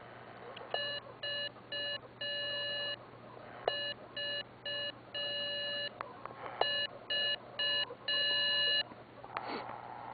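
Morse code tone from a 2 W ham radio CW transmitter keyed by an automatic telegraph key, sending the letter V (three short beeps and one long) three times: VVV, the usual test and beacon call. A short click sounds as each group begins.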